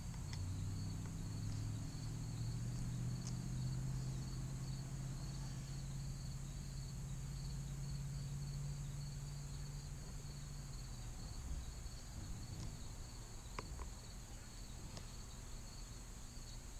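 Steady high-pitched chirring of insects, with a low hum underneath that fades out about eleven seconds in.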